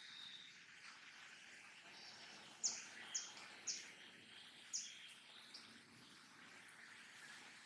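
Four short, high chirps over a faint steady hiss: the first three come about half a second apart, and the fourth a second later.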